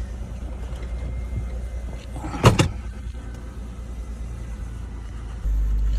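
Mercedes-Benz car engine idling with a steady low rumble, one sharp loud thump about two and a half seconds in. The rumble gets louder near the end.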